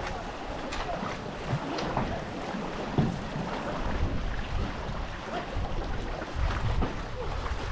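Racing canoe paddles stroking and splashing through river water at about one stroke a second, with wind rumbling on the microphone in the second half.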